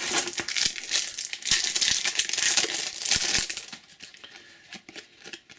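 Foil trading-card pack wrapper crinkling and tearing as it is opened by hand, dense crackling with sharp clicks for about three and a half seconds, then only faint handling ticks.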